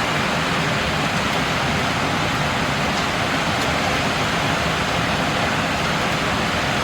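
Heavy thunderstorm rain pouring steadily, a dense, even hiss that holds at one level throughout.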